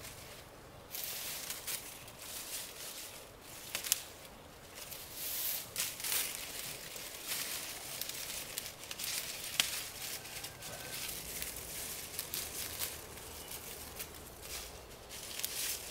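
Irregular rustling and crackling, with several sharp clicks or snaps among it.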